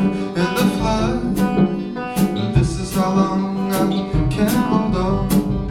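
Song instrumental break: strummed guitar with a steady beat, with some sung notes likely still trailing over it.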